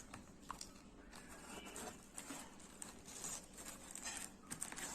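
Close-miked chewing: soft, irregular mouth clicks and crackles, a few a second, with small clusters near the middle and end.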